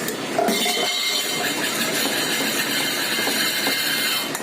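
Masala paste and water bubbling and sizzling hard in an open pressure cooker as it comes to the boil, a steady hiss that starts suddenly about half a second in.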